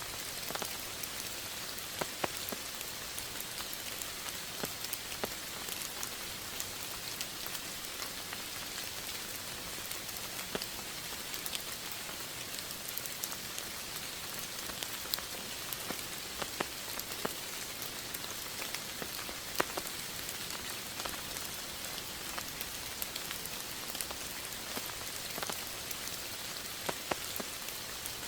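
Steady rain falling: an even hiss with scattered individual drops ticking sharply throughout.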